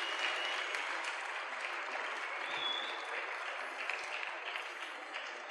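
Audience applauding at the end of a song, the clapping slowly dying away.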